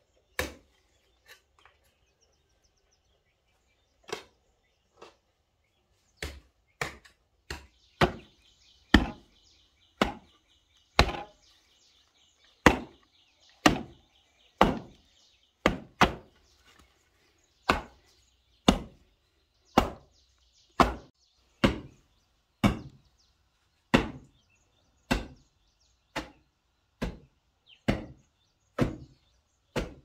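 Machete chopping in steady, sharp strokes about one a second, after a few scattered strokes at first.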